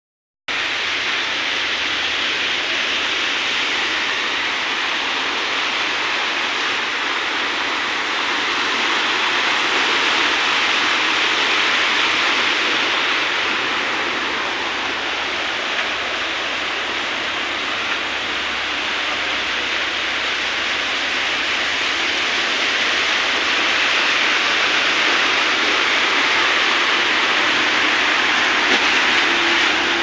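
Heavy downpour over a flooded street, with rushing floodwater: a steady rush of water that holds without a break.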